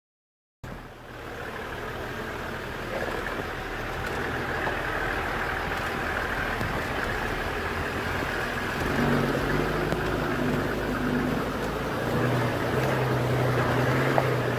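A four-wheel-drive vehicle's engine running steadily. The sound cuts in abruptly after half a second of silence, and a low, even engine note grows clearer and slightly louder in the second half.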